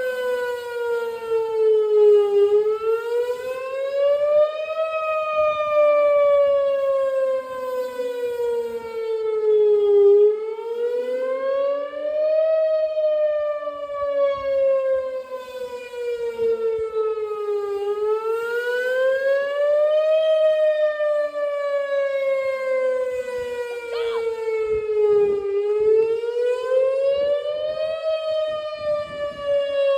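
Outdoor emergency warning siren sounding its wail tone during a test: one steady, loud tone that rises in pitch over about two and a half seconds, then sinks slowly over about five, the cycle repeating about four times.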